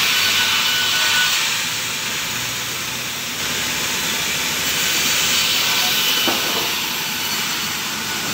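Sawmill saw machinery running, a steady hissing noise.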